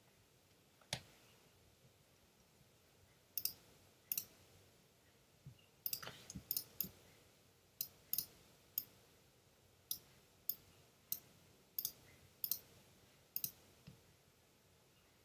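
Computer mouse clicking: about twenty short, sharp clicks at uneven intervals, the first about a second in and coming more often from about six seconds in.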